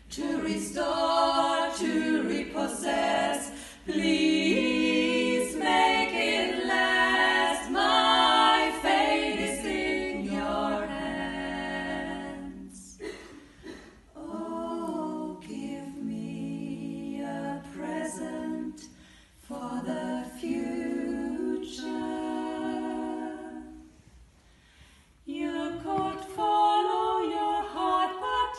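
A female vocal quartet singing a cappella in close harmony in a church, with short breaks between phrases and a near-silent pause a few seconds before the end.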